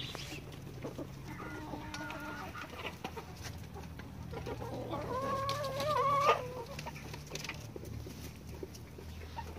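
Backyard chickens calling: a short drawn-out call about a second and a half in, then a louder, longer wavering call around five seconds in that cuts off suddenly.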